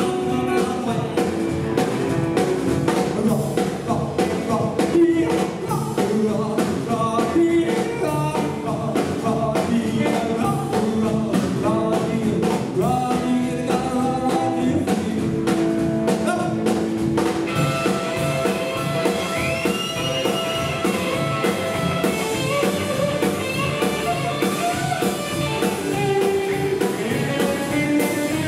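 Live rockabilly band playing: upright double bass, drum kit, electric guitars and a male lead singer. About seventeen seconds in the singing stops and an electric guitar solo takes over, with a note bent upward.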